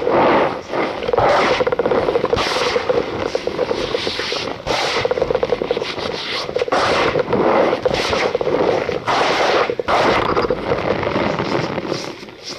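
Cornstarch powder being pressed and worked, giving a continuous squeaky crunching made of rapid crackles, with repeated stronger strokes; it stops near the end.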